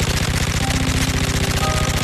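Kalashnikov AK-12 assault rifle in 5.45×39mm firing full-automatic, shots following one another rapidly and evenly without a break.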